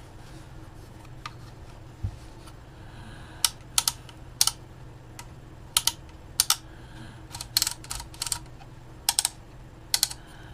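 About a dozen short, sharp, scratchy clicks, irregularly spaced and some in quick pairs, starting about three seconds in. They come from the internal contacts of a Simpson 260 multimeter being scrubbed clean by hand.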